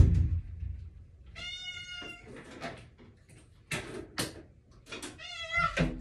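Domestic cat meowing: one drawn-out meow about a second and a half in and a second, wavering meow near the end. A few short knocks come in between.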